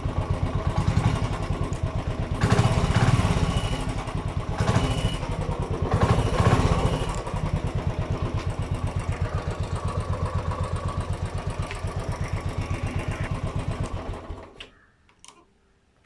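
Royal Enfield Classic 350's single-cylinder four-stroke engine idling with an even pulsing beat. It is revved up twice, then switched off near the end and dies away within about half a second. The bike is running with its battery disconnected.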